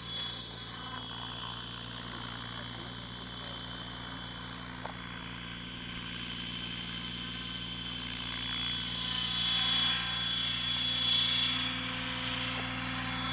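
Align T-Rex 800 radio-controlled helicopter flying, a steady rotor and motor whine with high tones that bend slowly up and down, growing louder over the last few seconds.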